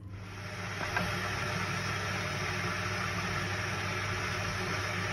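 A steady machine hum with an even rushing noise, as of a motor running; it swells in over the first second and then holds level, with a faint click about a second in.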